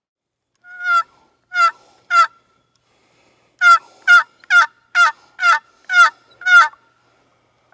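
Wooden box call for turkeys, worked by hand to give hen turkey yelps. There are three loud yelps, a pause, then a quicker run of seven.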